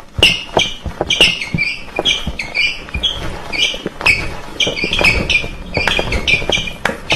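Silent-disco crowd chanting and shouting along a cappella to music that only their headphones carry, so the room holds voices alone in short repeated shouts, with sharp knocks scattered through.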